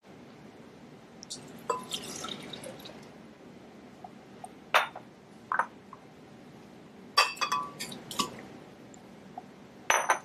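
Juice poured into the glass jar of a Hamilton Beach 58148A blender, then a run of sharp glass clinks and knocks as glassware is set down and banana chunks are dropped into the jar.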